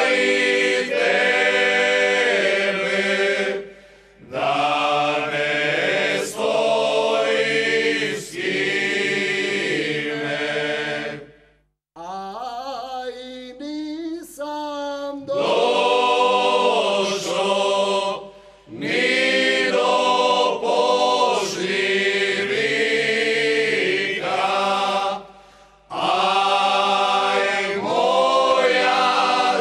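Male vocal group singing a Slavonian folk song a cappella, several voices in harmony in long phrases with short breaks between them. About twelve seconds in the singing thins out and drops in level for a few seconds before the full group comes back in.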